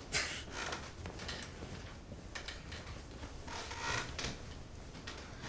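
Duvet and bedsheets rustling as people climb into bed, in several short bursts, the loudest at the start.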